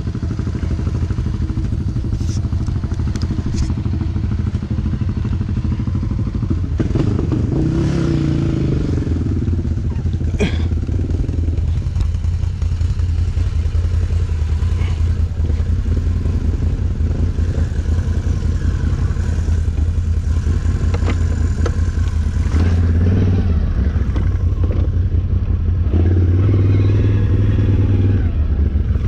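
Can-Am 1000's V-twin engine running steadily at low revs. It revs up briefly about a quarter of the way in and runs louder again near the end.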